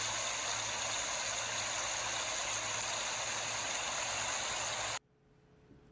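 Shallow woodland creek running, a steady rush of water that cuts off suddenly about five seconds in.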